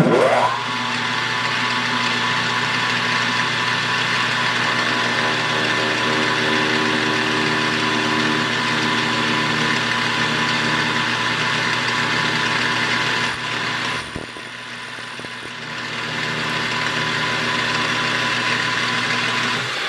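Metal lathe starting up, its motor pitch rising in the first moment, then running steadily while the cutting tool is plunged into the spinning workpiece. The sound drops off for about two seconds roughly two-thirds of the way through, with a faint high whine, then comes back.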